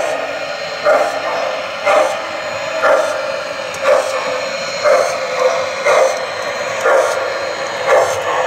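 Model steam locomotive's onboard sound system chuffing slowly and evenly, about one chuff a second, over a steady running hum, as the engine crawls along the track.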